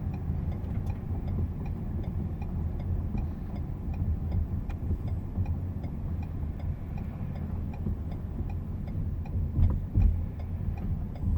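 Low road and tyre rumble inside the cabin of a Lincoln MKZ driving at low speed, with the hazard-light flasher relay ticking steadily. A couple of louder knocks come near the end.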